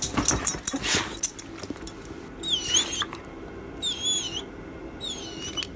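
A small dog whining in three short, high-pitched, wavering squeaks about a second apart. Clicking and rustling of the leash and collar come at the start.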